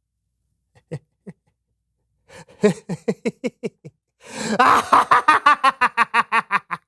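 A person laughing in two bursts of rapid 'ha-ha' pulses, the second one louder and longer.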